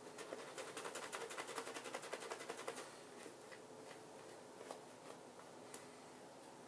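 Shaving brush worked quickly over a lathered face, the bristles swishing and squelching in rapid strokes. The strokes are faint and die down after about three seconds, leaving only a few scattered dabs.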